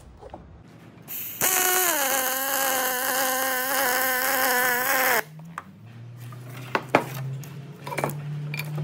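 Welding arc on aluminium: a steady pitched buzz with hiss for about four seconds, settling slightly lower in pitch just after it strikes and cutting off sharply. A low hum and a few clicks follow.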